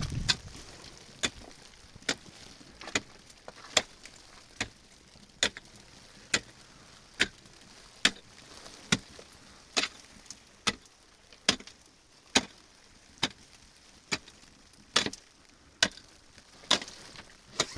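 Steady chopping: a sharp knock a little more than once a second, keeping an even rhythm throughout.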